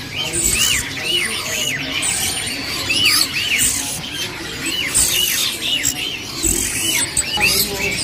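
Caged songbirds chirping, one repeating a short up-and-down whistled note about twice a second, with other chirps over it.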